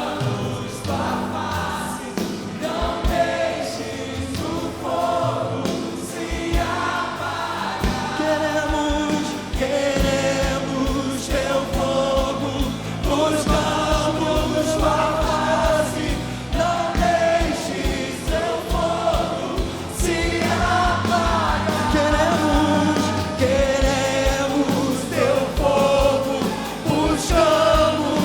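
Gospel worship music: a choir of voices singing long held, wavering notes over a band with regular low beats.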